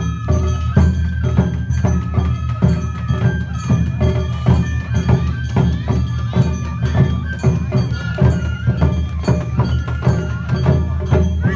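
Awa odori festival ensemble playing live: a bamboo-flute melody over a steady, driving rhythm of taiko drums and clanging gong strikes.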